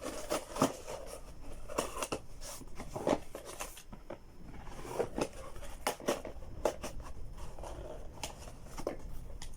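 A delivery box and its packaging being handled and opened by hand: irregular crinkles, scrapes and taps.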